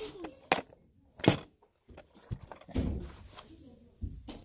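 Scattered light knocks and thumps as a plastic toy truck is handled and bumped close to the camera, about half a dozen at irregular intervals, the loudest a little over a second in.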